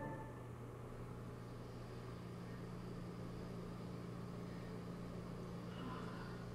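Quiet room tone: a steady low electrical hum with faint hiss. A faint short sound comes near the end.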